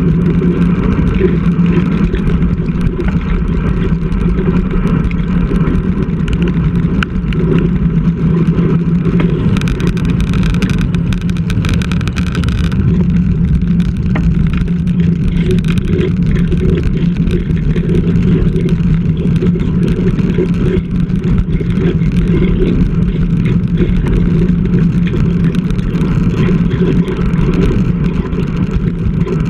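Steady wind rush and road noise on a bicycle-mounted action camera while riding along a road.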